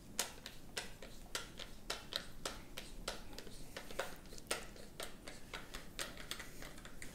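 Faint, irregular sharp clicks and light taps, about two or three a second, from hand tools working a stubborn bolt out of a motorcycle tail-tidy bracket.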